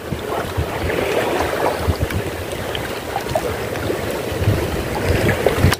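Wind buffeting the microphone over the wash of sea water, a steady noise with irregular low gusts.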